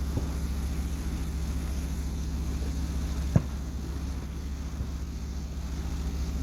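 A steady low mechanical hum, like an engine or generator running, with one sharp bang about three seconds in, from a firework going off at a distance.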